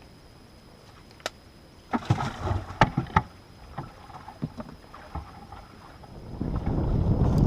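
A cluster of sharp knocks and clatter from fishing gear being handled in a small boat, then a few scattered knocks. Wind rumbling on the microphone builds toward the end.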